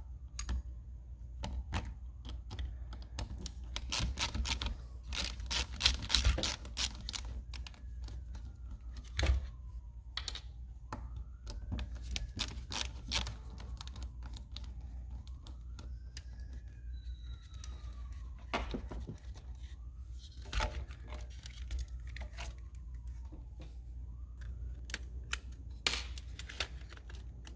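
Clicking and tapping of a screwdriver on screws and hard plastic trim as the cruise control switch is unscrewed and lifted out of a steering wheel. The sharp clicks come in irregular runs and are densest a few seconds in.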